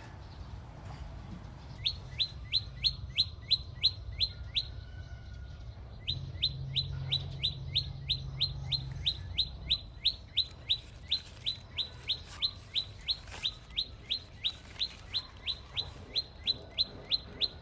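A bird calling with a rapid, regular run of short upward-sweeping chirps, about four a second, that breaks off briefly around five seconds in and then resumes.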